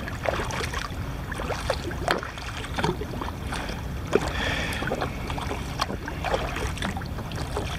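Water lapping and splashing against a kayak, with scattered small knocks over a steady low rumble.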